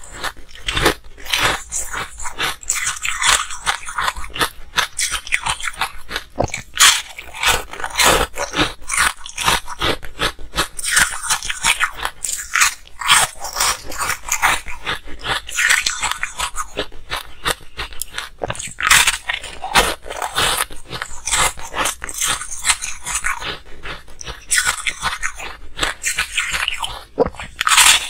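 Hard ice being bitten and chewed: a dense, unbroken run of sharp crunches and crackles.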